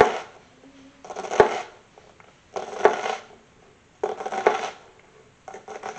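A chef's knife cross-cutting a scored onion into small dice on a wooden cutting board. There are about five slow strokes, roughly one every second and a half. Each is a crisp crunch through the onion that ends in a knock of the blade on the board.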